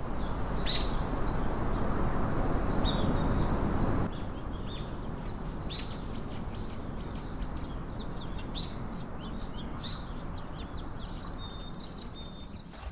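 Several birds chirping and calling over a steady rushing background noise, which drops in level about four seconds in.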